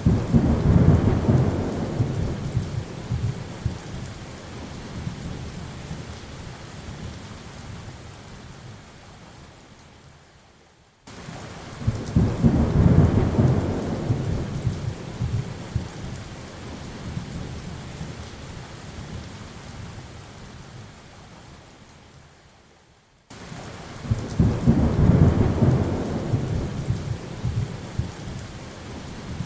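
Steady rain with rolling thunder. A deep rumble starts suddenly and swells, then fades over several seconds, three times about twelve seconds apart, like a repeating loop.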